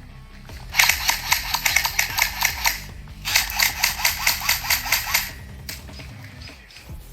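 Airsoft electric rifles firing two full-auto bursts, each about two seconds long with a short pause between, a rapid even stream of shots.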